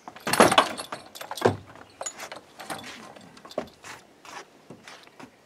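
Leather cavalry saddle being handled on a wooden deck railing: irregular knocks, rustles and small clinks of its straps and metal fittings, loudest in the first second and a half, then scattered lighter clicks.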